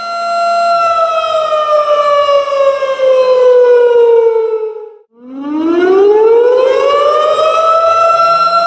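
Tornado warning siren wailing: a steady high tone begins to fall about a second in and glides down for about four seconds, almost dies away for a moment, then rises back to the same steady pitch near the end.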